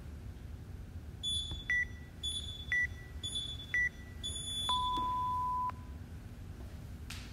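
Workout countdown timer beeping the start: three short high beeps a second apart, then one longer, lower beep about a second long that marks the go. A second, higher tone sounds about half a second ahead of each beep.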